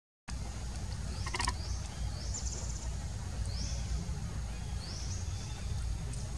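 Forest ambience: a steady low rumble under a high, buzzy call that rises and then levels off, repeating about every one and a half seconds. One sharp click comes about a second and a half in, after a brief silence at the start.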